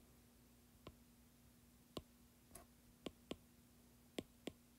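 Stylus tip tapping on a tablet's glass screen while writing by hand: about seven sharp, irregularly spaced clicks over a faint steady hum.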